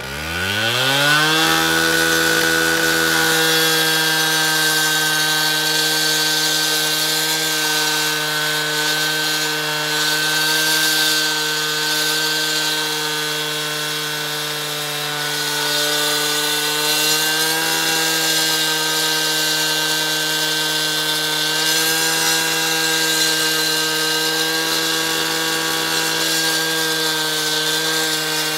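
Gas-powered two-stroke cut-off saw revving up to full throttle in about the first second and a half, then running at a steady high pitch as it cuts into a concrete curb under a water feed. Its sound eases slightly and recovers around the middle.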